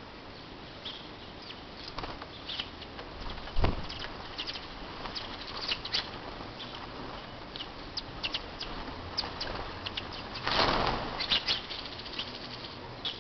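Small birds, including house sparrows, squabbling over broken rice: frequent short chirps and bursts of wing-flapping, the loudest flutter about ten and a half seconds in. A single thump comes about three and a half seconds in.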